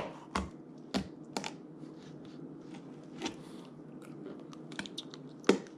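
Pocket knife cutting through a trout's neck to take off the head: irregular crunches and clicks as the dull blade works through bone and cartilage, the strongest near the start and about five and a half seconds in.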